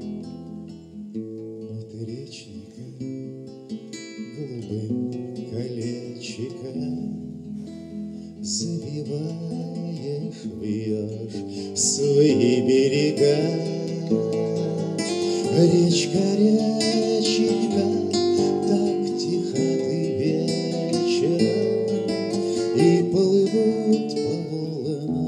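Nylon-string classical guitar played with picked notes and strummed chords, with a man singing to it. The playing grows louder about a third of the way in, and the singing is strongest in the second half.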